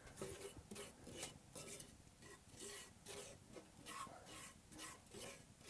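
Wooden spoon scraping and stirring semolina through butter in a cast-iron pan, in faint quick strokes, about three a second. This is the semolina being toasted for helva.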